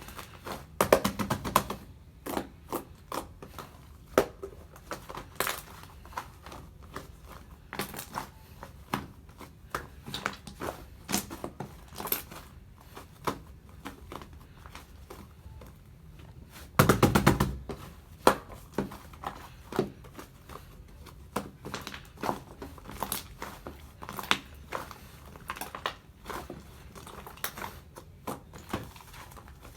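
Fluffy white slime being squeezed and pressed by hand, giving a run of sticky clicks and pops. There are two louder, denser squishing spells, about a second in and about seventeen seconds in.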